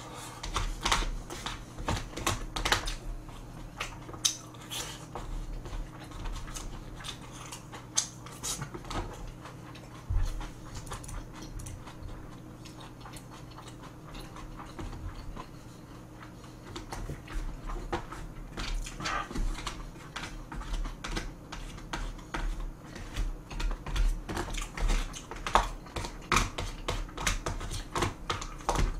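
Close-up eating sounds: chewing, and wooden chopsticks clicking and scraping against plastic takeout trays of fried rice and dumplings. The clicks come thick at first, thin out to mostly chewing in the middle, then pick up again.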